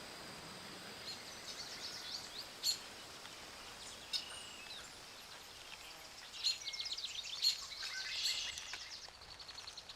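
Birds chirping and singing in quick series of high notes, busiest in the second half, over a steady hiss.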